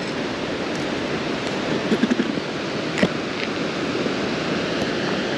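Steady rush of flowing stream water, with a short click about three seconds in.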